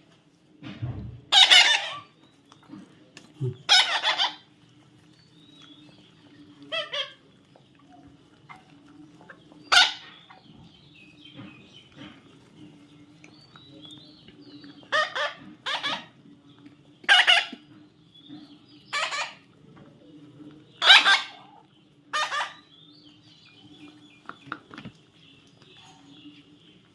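A baby parrot squawking in short, loud calls, about ten of them at irregular intervals, over a faint steady hum.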